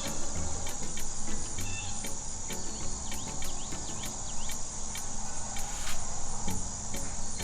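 A steady high insect chorus, cricket-like, with faint ticking through it. No loud animal call stands out.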